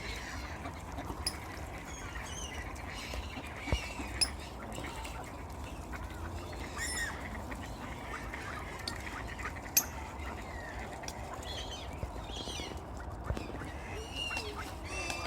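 A flock of ducks on a lake calling and quacking, short scattered calls throughout, over a steady low rumble, with a few sharp clicks.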